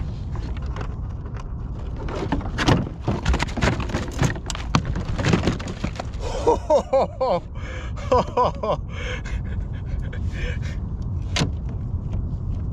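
Fishing gear being handled on a kayak: a landing net and wire tool knock, clack and rattle against the hull in a string of sharp knocks, with a few short pitched squeaky sounds around the middle, over a steady low rumble of wind on the microphone.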